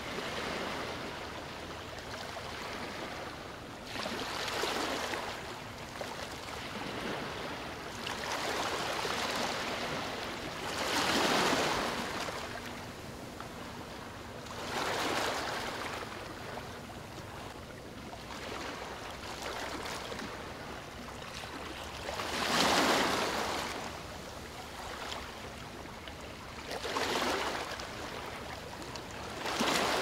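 Calm ocean waves washing in, each wave a swell of rushing noise that builds and fades, roughly every four seconds, some louder than others.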